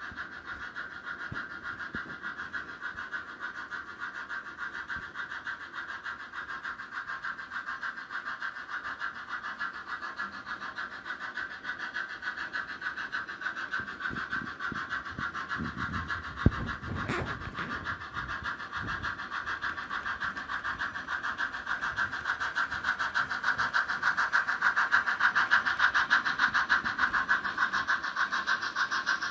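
HO-scale model train running on its track: a steady whirring of the locomotive's small motor and gearing, with metal wheels rolling on the rails, pulsing quickly and evenly and growing louder as the train comes close near the end. A single sharp click a little past halfway.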